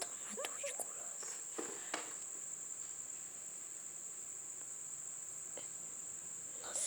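Cricket trilling: one steady, unbroken high-pitched tone, with a few faint short rustles or clicks in the first couple of seconds.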